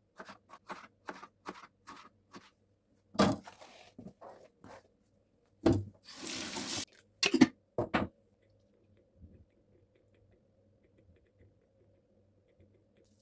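Kitchen work sounds: a quick run of short knocks, then a few louder clunks and a brief rush of running water from a tap about six seconds in, after which it goes quiet.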